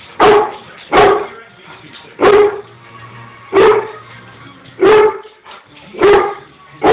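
A dog barking over and over: single loud barks at a steady pace, about one every second or so.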